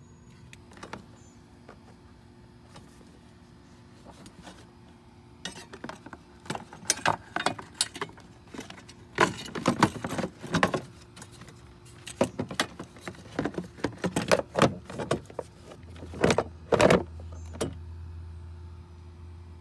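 Hand work on a car's battery tray area: an irregular run of sharp clicks, knocks and light rattles of parts being handled, thickest in the middle, with a few louder knocks near the end.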